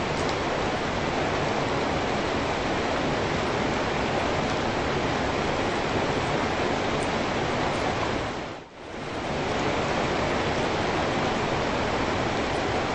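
Steady rain falling, a dense even hiss of drops on a wet street. About two-thirds of the way through it fades almost to nothing and swells straight back up.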